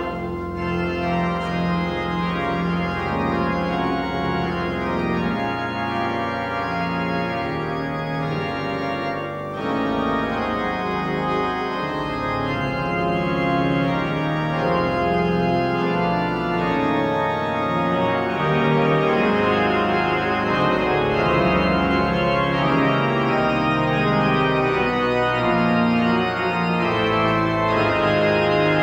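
Church pipe organ playing a hymn in slow, held chords.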